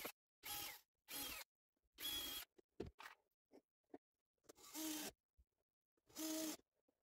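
Cordless drill run in six short bursts into a wooden crate frame, its motor whine climbing briefly in pitch within some bursts. There is a pause of about two seconds in the middle.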